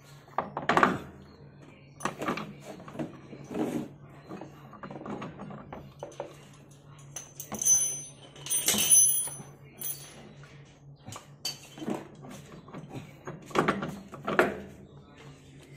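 Irregular metal knocks and scrapes as the CVT clutch and driven-pulley assembly of a Yamaha NMAX 2020 is worked onto its shaft and the drive belt eased into place. There is a brief metallic jingle and clatter around the middle.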